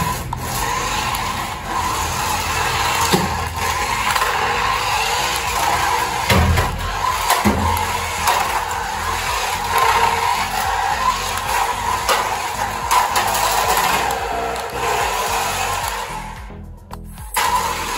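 Toy RC car's small electric drive motor and gears whirring as it runs over a hard floor, cutting out briefly near the end and starting again, with a couple of low thuds around the middle.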